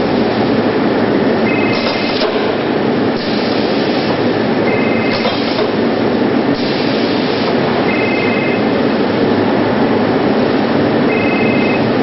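Tray-sealing machine running with a loud, steady mechanical noise. A short two-tone beep sounds about every three seconds, and bursts of hiss come and go as it cycles through sealing trays.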